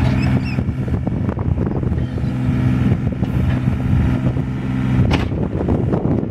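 Yanmar VIO27 mini excavator's three-cylinder diesel engine running at a steady speed while the hydraulic boom lifts the bucket, with a single sharp clank about five seconds in.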